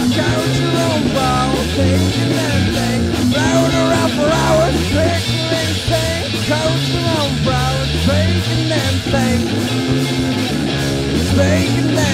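Demo recording of a punk rock song with electric guitar, bass and drums, playing a stretch without words. A lead melody of bending, wavering notes runs over the band.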